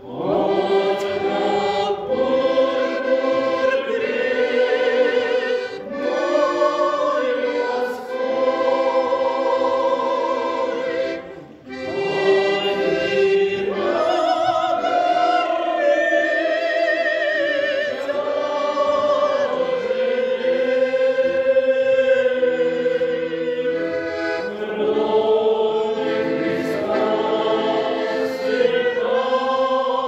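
Church choir singing a hymn in held, slow chords, with a brief break between phrases about a dozen seconds in.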